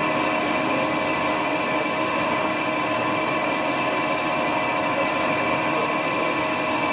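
Chevalier FCL-40160 teach-in lathe running: a steady machine hum and whine with several fixed tones that hold unchanged throughout.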